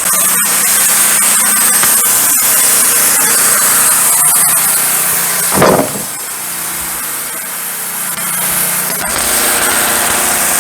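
Wood-Mizer LT15 Go band sawmill running, its engine under load as the band blade cuts through a pine log, with a steady engine hum under the hiss of the blade. Just before the middle a brief louder sound rises over it, and after that the sound is somewhat quieter.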